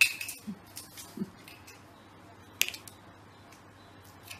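Quiet room tone with a few light clicks and taps, the sharpest about two and a half seconds in: a cat's paw knocking a small plastic cap about on a stone tabletop.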